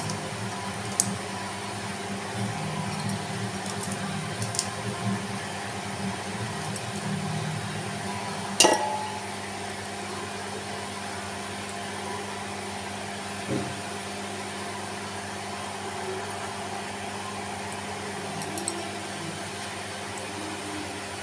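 Occasional light clinks of a utensil against a stainless steel pot as cooked rice is spread over the chicken layer of a biryani, the sharpest, briefly ringing clink about eight and a half seconds in. A steady hum runs underneath.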